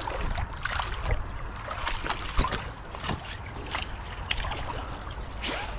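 Footsteps crunching over creek-bank stones and dry brush, with irregular clicks and snaps, over the steady trickle of a shallow creek.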